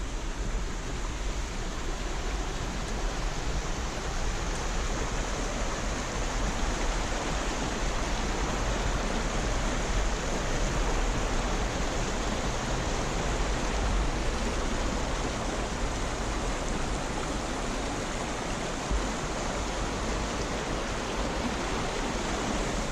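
Rushing stream water, a steady, even hiss of flowing water.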